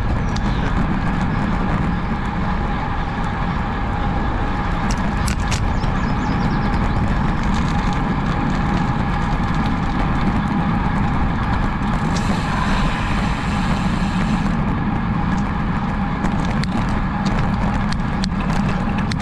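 Steady road traffic noise: a dense low rumble that runs on without a break, with a few faint clicks.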